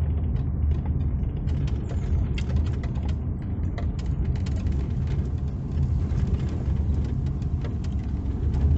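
1988 Toyota Hiace campervan with its 2-litre petrol engine, heard from inside the cab while descending a steep hill: a steady low engine and road rumble with frequent light rattling clicks.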